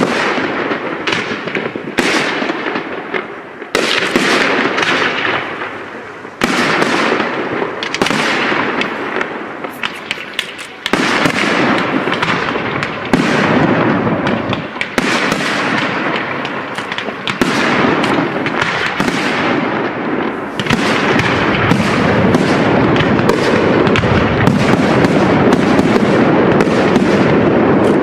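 Aerial fireworks shells bursting one after another, each bang trailed by a fading crackle. From about two-thirds of the way in, the bursts run together into a dense, near-continuous barrage.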